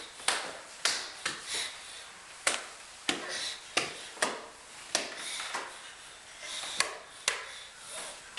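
A crawling baby's hands slapping a hardwood floor and wooden stair treads: a string of irregular sharp slaps, roughly two a second.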